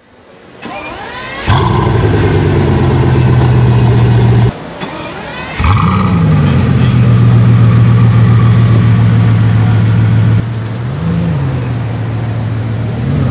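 Bugatti Veyron Grand Sport Vitesse's quad-turbo W16 engine being started: a short rising crank whine, then it catches and runs at a raised idle for about three seconds before cutting off. It is started again, flaring up and settling into a steady idle, with two light blips of the throttle near the end.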